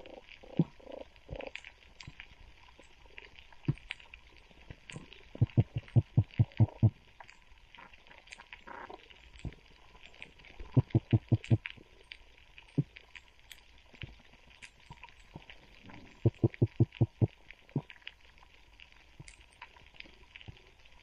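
Underwater sound on a reef, heard through a camera's waterproof housing: a faint scatter of small clicks throughout, and four times a burst of rapid low knocking pulses, each train lasting about a second and a half.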